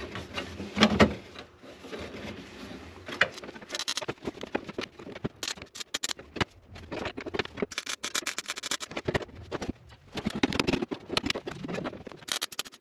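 MIG welder tack-welding sheet steel: an irregular crackle in several short bursts with brief pauses between them, after a couple of handling knocks about a second in.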